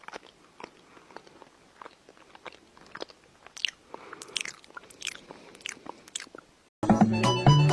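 Close-up chewing and crunching, a quick, irregular run of small crackling bites, typical of a cat chewing. Music cuts in near the end.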